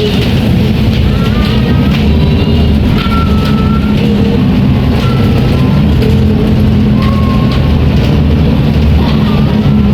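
Volvo B340M Euro V bus engine running with a steady low drone, with brief high squeaks now and then.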